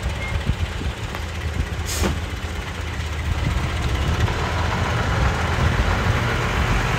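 Dump truck's diesel engine running steadily, with a short hiss about two seconds in and a louder rushing noise building from about halfway.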